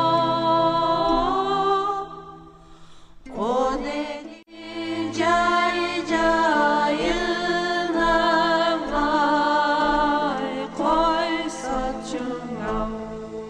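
Music: a singing voice holding long, wavering notes and sliding between them over a steady low drone, with a short pause about three seconds in.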